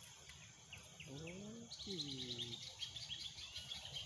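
Birds chirping: a few short high chirps, then a fast, high twittering chatter that starts about halfway through and keeps going. A brief rising-then-falling voice-like sound comes in the middle.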